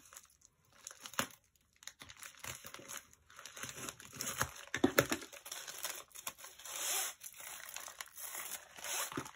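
Plastic padded mailer crinkling and rustling as it is cut open with scissors and handled, with a few sharp clicks about five seconds in.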